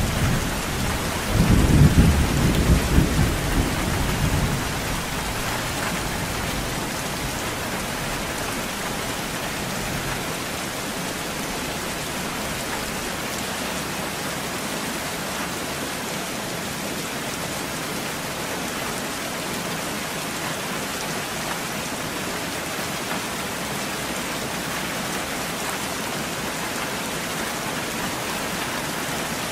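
Steady rainfall, with a loud rumble of thunder near the start that dies away by about four seconds in.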